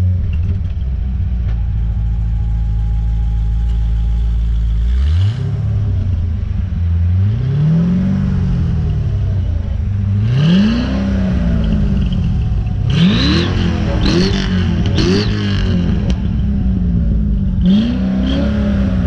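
Corvette Z06's 7.0-litre LS7 V8 idling steadily, then revved about seven times, each rev climbing quickly and falling back more slowly. Clip-on turbo whistles are fitted in the exhaust tips, and a faint high whistle rises and falls with the later revs.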